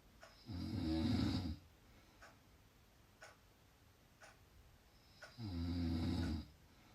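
A person snoring: two snores about five seconds apart, each lasting about a second. Faint ticks sound about once a second in between.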